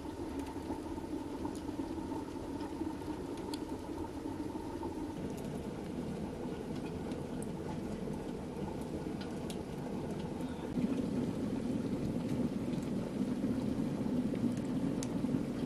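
A pot bubbling steadily over an open wood fire, with a few faint crackles; the sound shifts about five seconds in and grows louder about eleven seconds in.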